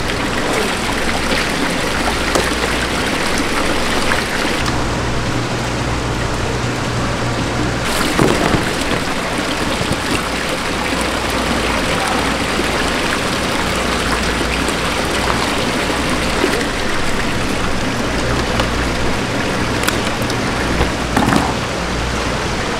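Water pouring steadily from an inflow pipe into a live seafood holding tank, splashing and churning the surface, with a low steady hum underneath.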